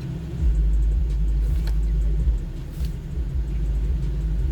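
Low rumble of a car engine idling, heard from inside the car's cabin, getting louder about half a second in.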